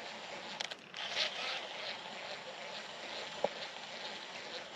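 Quiet outdoor background hiss with a faint regular pulsing, broken by a few sharp clicks: a quick pair just under a second in, and a single sharper one a little past three seconds.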